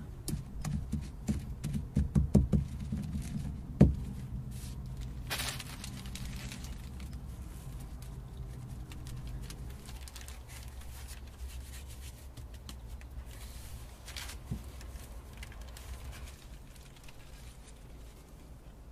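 Stone pestle pounding acorns in a stone mortar with a basket hopper: a run of dull thuds over the first four seconds, the last one the loudest. A brief rustle follows, then quieter scraping and light clicks as the meal is handled.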